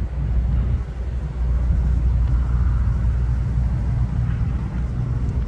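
Steady low rumble of road traffic, swelling a little in the middle.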